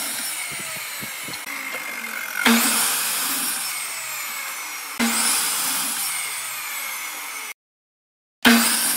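A sliding compound miter saw running and cutting through wooden boards: a high motor whine that falls in pitch through each cut. The sound comes in short, abruptly edited takes that start suddenly about two and a half and five seconds in, and drops out briefly near the end.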